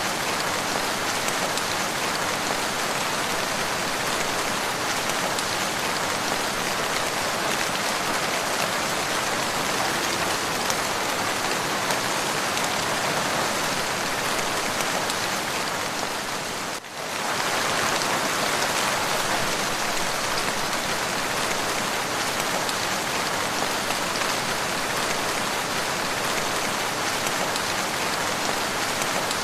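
Steady, continuous rain, an even hiss of many drops. About two-thirds of the way through the level dips for a moment, then returns.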